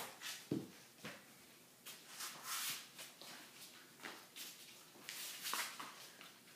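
Faint shuffling of a large dog moving about a small puppy on the floor, with a couple of soft knocks near the start and a few short hissy rustles.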